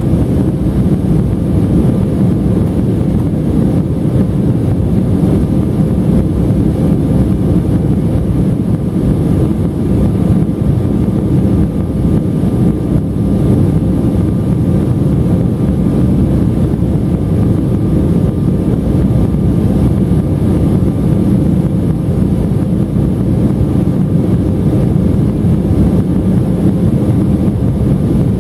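Steady cabin noise inside an Embraer E175 jetliner in flight: a low, even rush of airflow over the fuselage and the hum of its General Electric CF34 turbofans, with a faint steady tone running through it.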